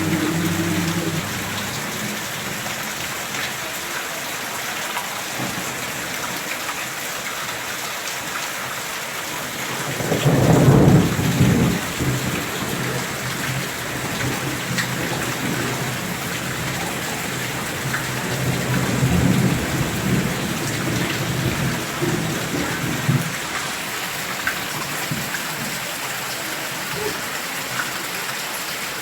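Steady rain falling, with low rumbles in the sky overhead: a loud one about ten seconds in lasting a couple of seconds, and a weaker, longer one a little later. The rumbling is the sound in the sky that the uploader finds strange.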